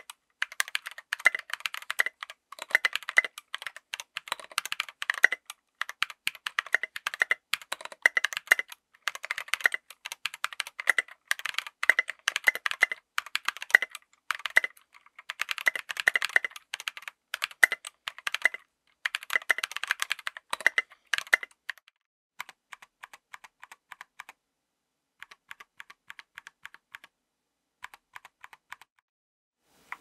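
Fast typing on a 60% mechanical keyboard with stock Tecsee Purple Panda tactile switches and SA-profile keycaps: a dense, quick run of key clicks and bottom-outs. About two-thirds of the way through the typing stops, leaving only a few fainter, scattered clusters of clicks.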